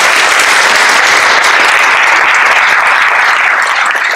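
Audience applauding, loud and steady.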